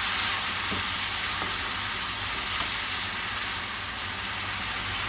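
Chopped tomatoes, onion and ginger-garlic paste frying in oil in a pan: a steady sizzle while they cook down to soften, with a few faint taps of the stirring spoon.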